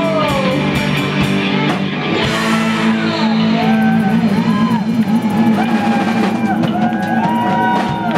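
Rock band playing live: electric guitars, bass guitar and a drum kit, with singing over them.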